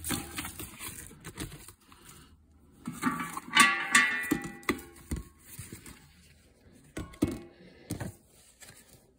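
Small clear plastic baggies crinkling and rustling as they are handled, loudest about three and a half to four and a half seconds in, with a few sharp knocks and clicks.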